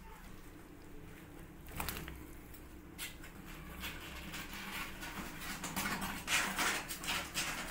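A calico cat nuzzling and rubbing its head against a person's jeans close to the microphone: soft, scratchy rustling of fur on fabric that grows busier and louder over the last couple of seconds.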